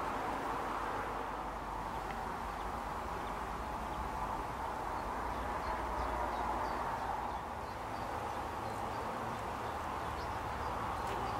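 Outdoor garden ambience: a steady background noise, with faint, brief bird chirps through the middle.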